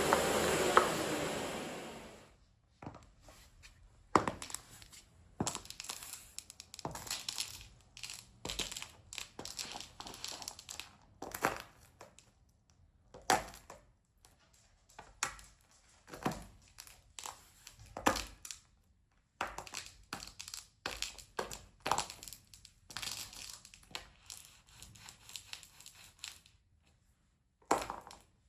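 Miele vacuum cleaner running, then switched off and winding down about two seconds in. After it come irregular clicks, knocks and rustling of objects being handled and set down.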